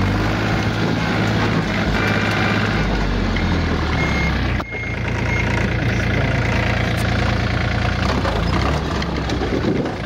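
Yanmar F215D compact tractor's three-cylinder diesel engine running steadily as the tractor drives with its front-wheel drive engaged. The sound drops out sharply for a moment about halfway through.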